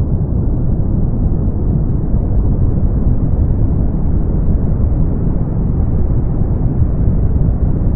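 Brown noise: a steady, deep rumbling hiss with most of its energy in the bass and nothing above the upper mids, unchanging throughout.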